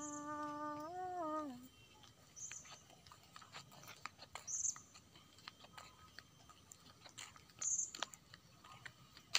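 A drawn-out vocal call lasting about a second and a half, steady in pitch, rising a little and then falling away at the end. After it, faint open-air quiet with scattered light clicks and a few short, high chirps.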